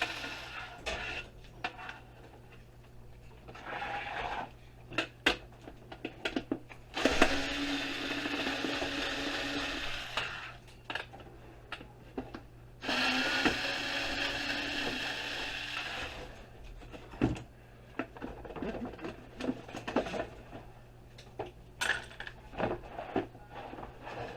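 Cordless drill-driver running in short bursts of a few seconds, backing out screws, with small clicks and taps of screws and plastic parts being handled between runs.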